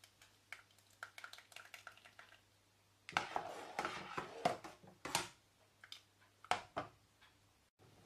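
Metal ladle stirring thick lentil soup in a stainless steel pot: light taps and clinks at first, then about two seconds of louder scraping and sloshing against the pot, and one more short scrape near the end.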